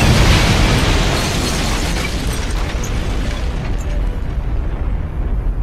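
The deep, rolling rumble of a huge explosion, slowly dying away after a blast that struck just before.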